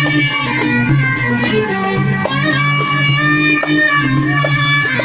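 Instrumental interlude of religious song: a plucked-string melody over sustained accompaniment and a steady beat of roughly four strokes a second, with no singing.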